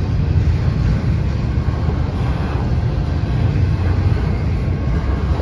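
Intermodal freight train rolling past, a steady low rumble.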